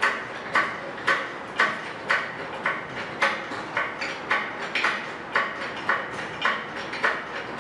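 Hydraulic engine crane being pumped by hand to hoist an engine, a sharp metallic clack with each pump stroke, about twice a second in an even rhythm.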